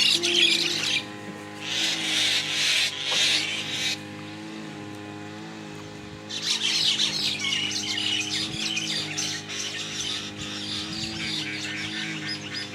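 Many small birds chattering and chirping densely. The chatter stops for about two seconds near the middle, then resumes. A steady low hum runs underneath.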